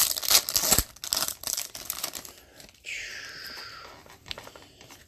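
Foil wrapper of a hockey card pack being torn open and crinkled: loud crackling for about the first two and a half seconds, then a softer falling swish.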